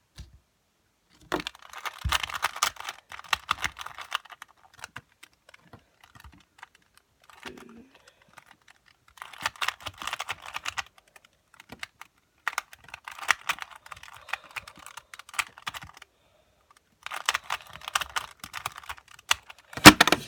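Rubik's Cube being turned fast during a speedsolve: rapid clicking and clattering of the plastic layers. It comes in about four bursts of a few seconds each, with short pauses between.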